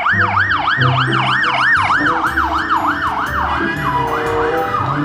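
Electronic siren of a toy police car, a fast wail rising and falling about three times a second, with low electronic notes stepping underneath. About three and a half seconds in the sweeps turn less regular.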